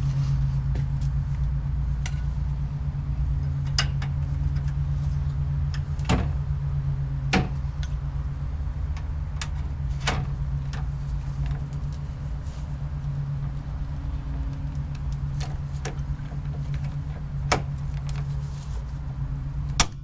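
Aluminium pop rivets being set with a hand riveter: several sharp snaps as the mandrels break, over a steady low motor hum.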